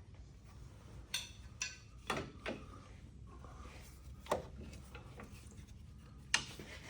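Scattered knocks and clunks of tools and suspension parts being handled, about six separate hits over several seconds.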